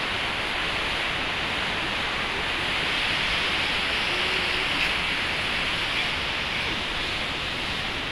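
Steady outdoor rushing noise, an even hiss with no distinct events, a little louder in the middle of the stretch.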